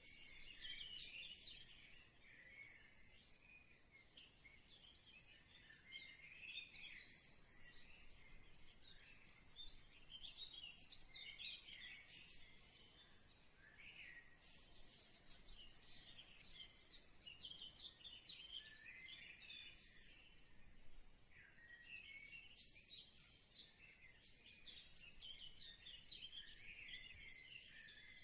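Faint, continuous chirping of many small birds, short high notes overlapping without a break.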